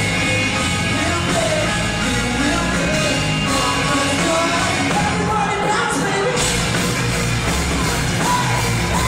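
Pop-punk band playing live on stage, with a singer's voice over guitars and drums. It is a loud, dense mix heard from within the audience.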